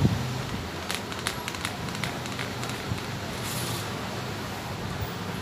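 A hand pressing and patting a crumbly chana dal barfi mixture flat in a steel plate: soft crackling and scattered light clicks against the plate, with a thump right at the start, over a steady low hum.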